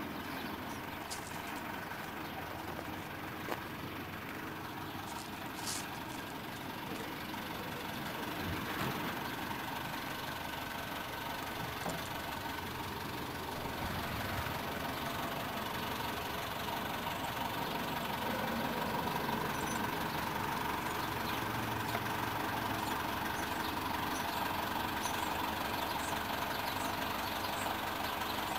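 Diesel engine of a heavy construction machine idling steadily, growing slowly louder through the second half.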